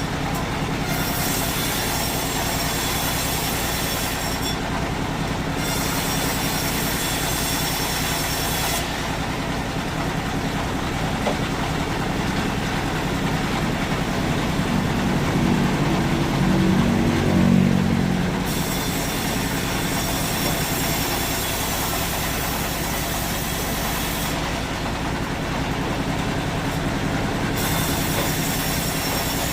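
Sawmill machinery running steadily, swelling louder for a few seconds about halfway through.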